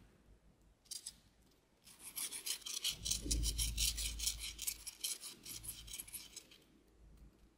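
Crisp fried potato wedge crackling as fingers break it apart: a few crackles about a second in, then dense, rapid crackling for about four and a half seconds.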